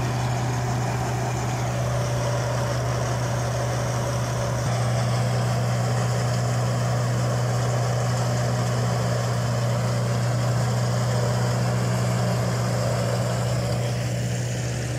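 Tractor engine running steadily under load, driving a PTO-powered peanut thresher as peanut plants are fed in; a constant low engine drone under the thresher's continuous rushing noise.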